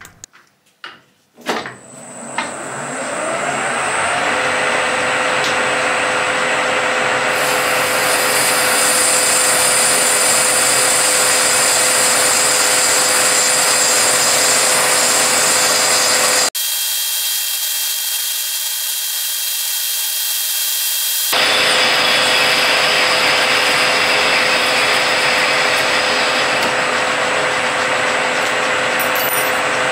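Metal lathe spinning up about two seconds in, then running with a steady whine while a carbide parting insert cuts into a bronze bar. In the middle the lower part of the sound drops away for about five seconds, leaving a high hiss, before the full cutting noise returns.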